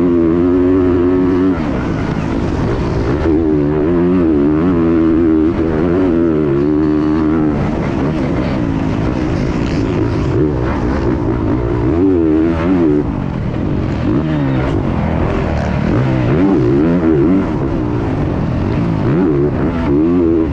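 Motocross bike engine heard from the onboard camera, revving hard and rising and falling in pitch again and again as the throttle is worked and gears change through the lap.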